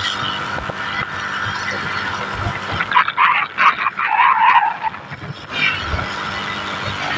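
Steady hum and road noise of a vehicle travelling along a road, with a louder, irregular stretch of sound about halfway through.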